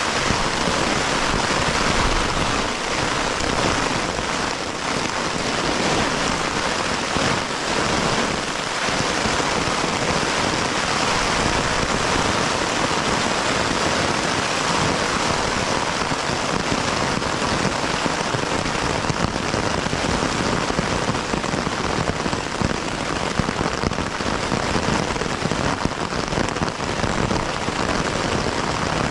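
Steady, heavy rain falling during a thunderstorm.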